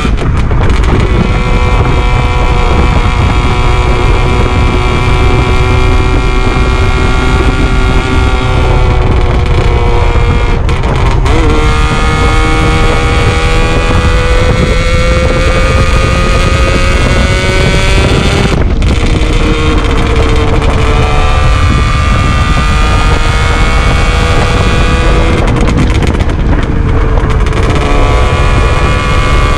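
Yamaha RD400's air-cooled two-stroke parallel-twin engine under way on the road, its note climbing in pitch as it pulls, with a few brief breaks in the engine note. Wind buffets the microphone under the engine.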